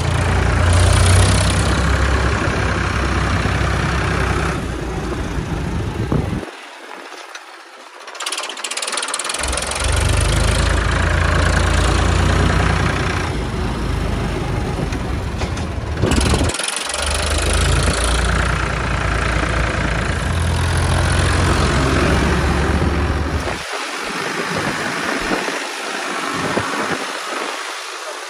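Restored Ford 3600 tractor's three-cylinder engine running steadily as the tractor drives along the road. Its low note drops away for a few seconds about a quarter of the way in, and again, unevenly, near the end.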